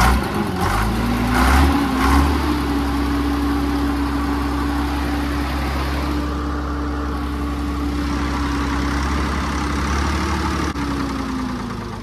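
Container fork truck's diesel engine, just started, picking up to a steady idle, then from about ten and a half seconds in dying away and stopping on its own. The stall is a sign of fuel starvation, which the mechanic puts down to air in the fuel system.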